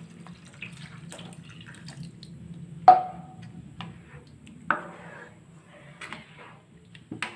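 Water poured from a plastic jug into a kadai of potato masala, then a spatula stirring the thin gravy. A sharp clink with a short ring against the pan comes about three seconds in, with softer knocks later.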